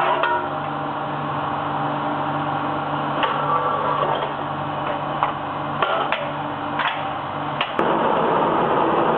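Steady mechanical hum with scattered knocks and clanks; about eight seconds in it gives way to a louder, steady rushing noise.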